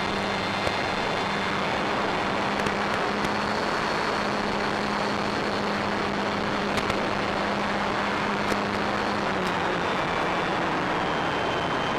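Onboard sound of a Durafly Tundra electric RC plane in flight: a dense rush of wind and propeller noise over a steady motor drone and a fainter high whine, both dipping slightly in pitch about nine seconds in, with a few faint ticks.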